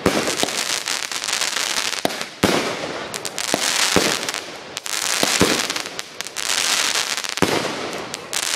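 Consumer aerial fireworks going off: about five sharp bangs one to two seconds apart, each followed by a few seconds of loud crackling hiss from the bursting shells.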